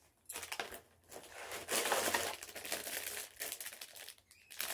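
Gold metallic foil packet crinkling as it is handled and opened by hand, in a run of uneven crackling bursts that are loudest about two seconds in.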